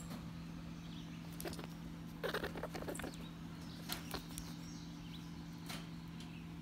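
Faint rustling and small scattered clicks of newborn French Angora rabbit kits squirming in their nest with a hand moving among them, with a louder flurry of rustling about two seconds in. A steady low hum runs underneath.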